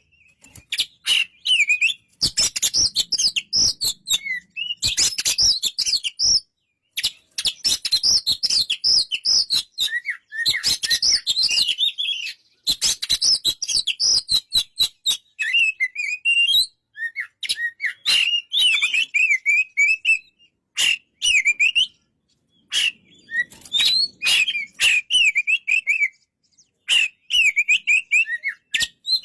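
Oriental magpie-robin (kacer) singing a varied, warbling song in bursts of phrases with short pauses, mixed with many sharp clicks.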